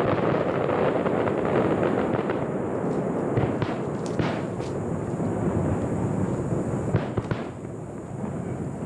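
Aerial fireworks going off: a dense, continuous crackle of many bursting shells, with several separate sharp bangs standing out, the last two about seven seconds in. The crackle thins out and quietens near the end.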